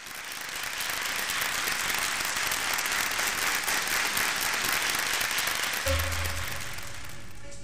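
Audience applauding, the clapping easing off toward the end. About six seconds in, a kamancheh starts a long held bowed note, with a low note sounding beneath it.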